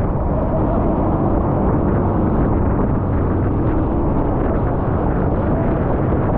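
Passenger speedboat running at full speed through rough river water: a steady engine whine mixed with rushing water and spray, and wind buffeting the microphone.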